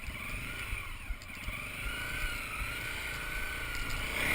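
250 cc supermoto motorcycle engine running under load while being ridden off-road, its note rising and falling with the throttle.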